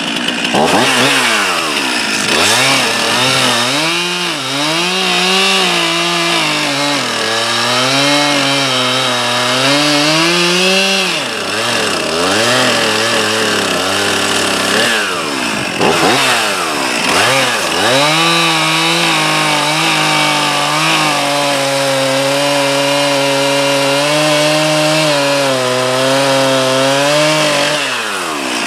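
STIHL gas chainsaw cutting through a tree trunk, its engine pitch sagging and wavering under load. A few times it drops off the throttle and revs back up between cuts.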